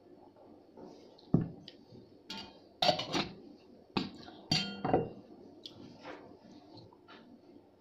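About half a dozen sharp clinks and knocks of a metal mug against tableware, each with a short ring, between about one and five seconds in.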